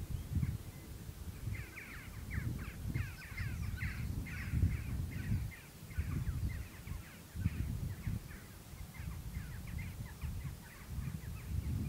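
Birds singing in quick runs of short, falling chirps, over wind gusting on the microphone.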